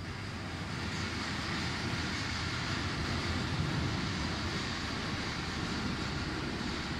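Steady mechanical running noise that grows a little louder about a second in.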